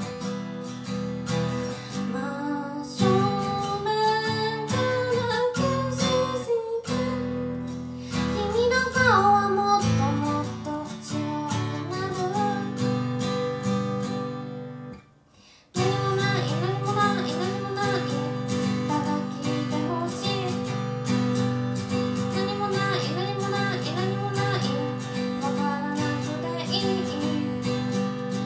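A woman singing to her own acoustic guitar accompaniment. About halfway the music fades away, and after a brief gap the acoustic guitar starts again abruptly.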